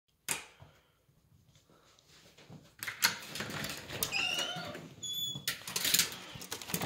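A sharp click, then a door being pushed open with short rising squeaks, a brief high squeal, and rubbing and scraping noise.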